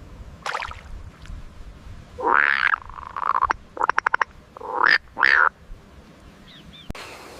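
Animal calls: a short rising-and-falling call, a quick run of about six clicks, then two more short calls close together.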